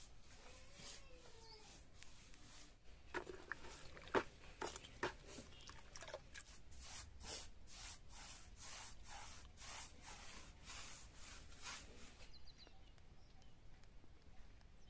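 Faint rhythmic swishes of a paintbrush stroked across a plastered wall, about two strokes a second, with a few sharper knocks a few seconds in.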